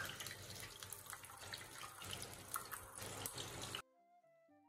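Batter-coated banana fritters sizzling and crackling in hot oil in a steel pan, just turned over to fry the second side, with a sharp metal clink at the start. The frying cuts off abruptly about four seconds in, leaving a few faint music notes.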